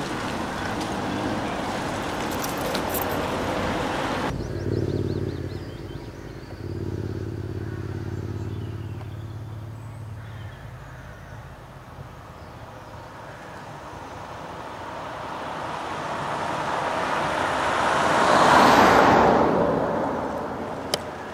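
Road-race traffic on a country road: engine and tyre noise from the following vehicles, then a steady low engine note. About three-quarters through, a motor vehicle passes close, swelling to its loudest and then fading.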